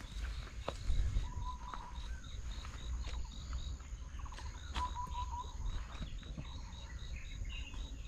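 Rural outdoor ambience: an insect chirping steadily about three times a second, with two short runs of repeated bird notes, over a low rumble.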